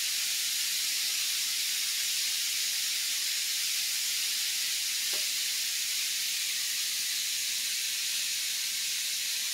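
Chopped bacon frying in a hot skillet on medium-high: a steady, even sizzle.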